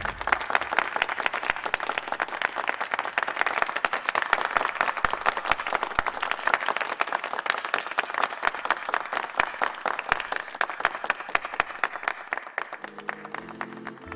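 Crowd applauding, many hands clapping, thinning out toward the end. Music starts up near the end.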